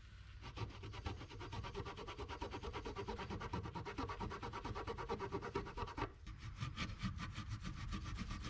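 Paper towel rubbed quickly back and forth over the J3 port edge connector of an EEC-IV engine computer's circuit board, wiping off the factory grease. It is a quiet, even scrubbing with a short break about six seconds in.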